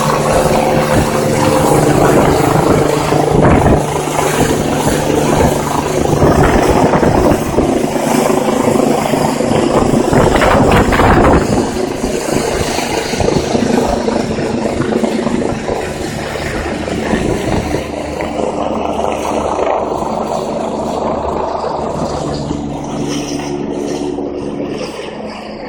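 EC-145 twin-turbine helicopter running at high power, its turbines and rotor making a loud, steady sound with several held tones. The sound grows gradually fainter over the second half, as the helicopter lifts off and moves away.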